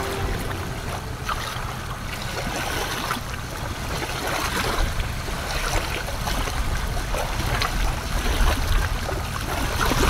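Small waves lapping over shallow sand at the water's edge, with wind rumbling on the microphone.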